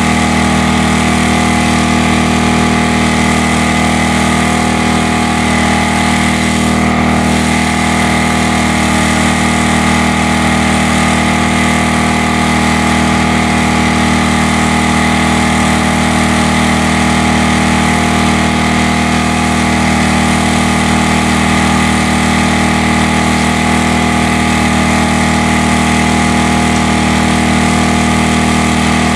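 Corded electric hammer drill running steadily without a break, drilling into concrete.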